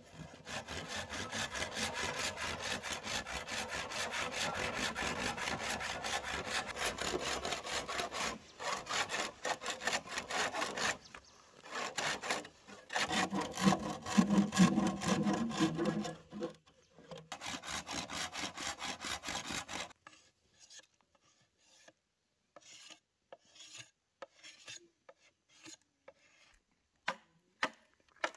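Rapid, regular rasping strokes of a hand tool working bamboo, several strokes a second, with a short break midway. The strokes stop about twenty seconds in, and a few scattered light taps follow.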